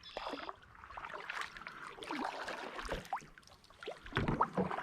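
Small paddled boat moving slowly through the water: irregular paddle knocks and hull bumps with water splashing and trickling.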